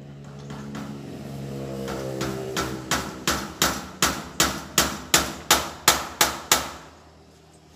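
Hammer blows on the steel trellis door, a run of about a dozen quick strikes at roughly three a second, growing louder, over a steady machine hum.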